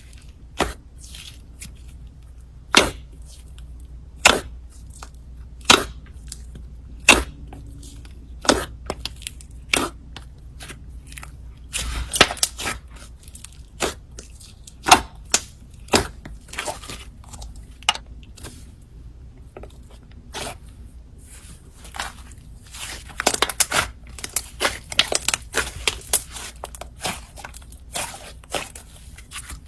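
Slime being mixed with clay by hand, giving sharp pops about every second and a half, then denser crackling in stretches later on.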